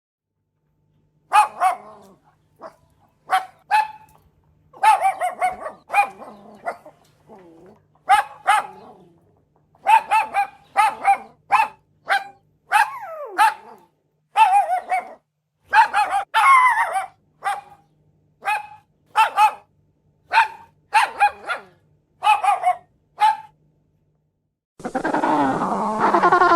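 Dog barking: a long run of short, sharp barks, some single and some in quick pairs or clusters, with brief gaps between them. Near the end the barking stops and a different continuous sound begins.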